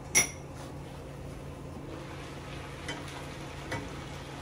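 A metal pot lid clinks once as it is lifted off a pot of cooked rice and pigeon peas, then a steady low hiss and hum of the stove and pot, with two light clicks later on.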